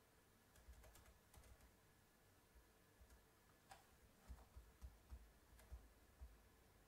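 Faint, irregular typing on a computer keyboard and mouse clicks.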